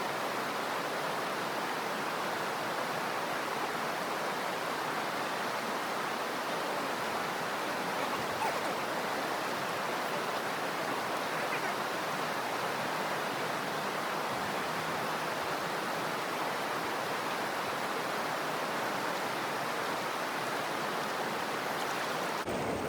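Steady rush of river water running over a shoal.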